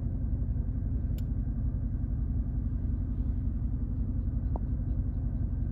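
Car driving, heard from inside the cabin: a steady low rumble of engine and road noise, with a faint click about a second in.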